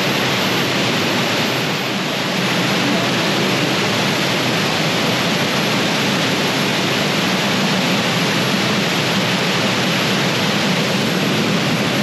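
Steady rush of a waterfall and the fast stream running over rocks below it.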